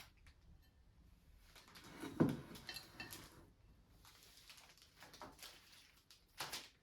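Quiet handling noises from cut flowers being trimmed and set in a vase: soft rustling with scattered light clicks, and a sharper knock a little after two seconds.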